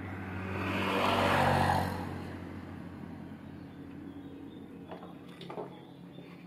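A road vehicle passing by, its engine and tyre noise swelling and then fading over about two seconds, followed by a few light knocks.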